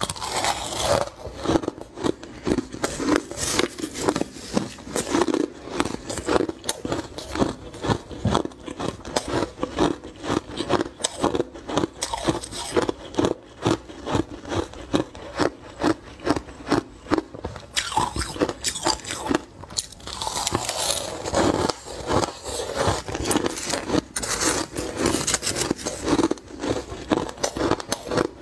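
Close-miked chewing of crushed frozen ice: steady, rapid crunching, about three crunches a second.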